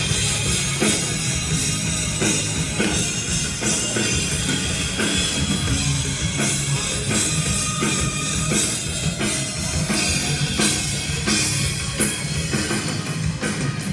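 Live rock band playing at full volume: a steady drum-kit beat under distorted electric guitars and bass, with no vocals.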